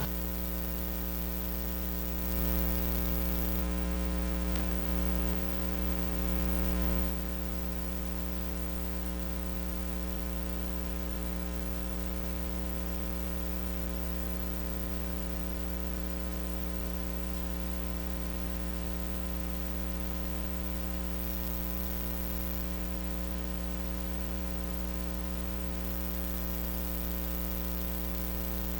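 Steady electrical mains hum, a buzz made of many evenly spaced tones. A slightly louder low rumble sits under it for a few seconds near the start.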